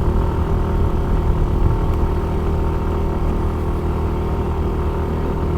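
Yamaha Mio i 125 scooter's single-cylinder four-stroke engine running at a steady pitch under load while climbing a steep paved road.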